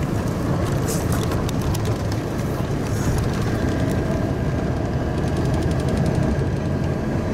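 Steady low rumble of a tour bus's engine and tyres, heard from inside the moving bus, with a few light clicks and rattles.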